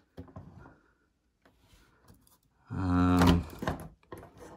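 Hands handling the plastic shell of a model locomotive: scattered light clicks and rubbing. About three seconds in there is a short, loud, wordless vocal sound from a man.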